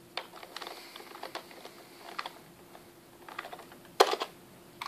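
Computer keyboard keys clicking in scattered taps, with a louder knock about four seconds in, over a faint steady hum.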